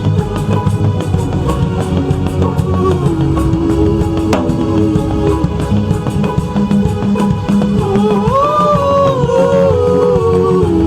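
Loud church praise-band music with a steady drum-kit beat over bass. A melody line rises and wavers near the end.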